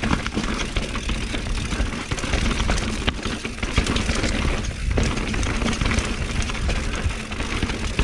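Mountain bike rattling down a rocky dirt trail: tyres crunching over stones and roots, with the chain and frame clattering in quick, irregular clicks. A heavy low rumble of wind buffets the microphone.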